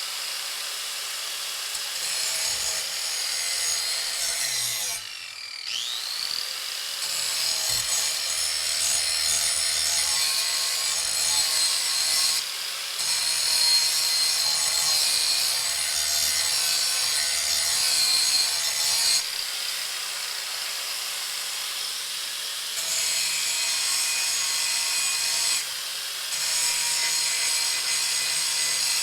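Handheld grinder grinding the steel cutting edge of a lawn mower blade clamped in a vise, a dense, harsh, high-pitched grinding. There is a short break about five seconds in, and the pitch sweeps up as the grinder comes back up to speed. Shorter dips follow as the grinder is lifted and moved along the edge.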